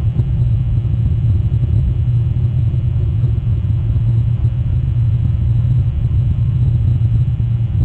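Steady low rumble that does not change, the constant noise picked up by an outdoor wildlife webcam's microphone.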